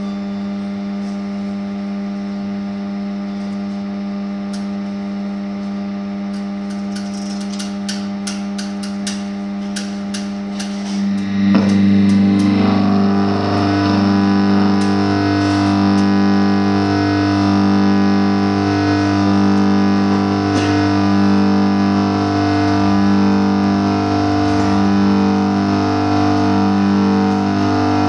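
Live experimental band music: a steady distorted drone of held tones, with a few sharp clicks. About eleven seconds in, it swells into a louder chord that pulses evenly about twice a second.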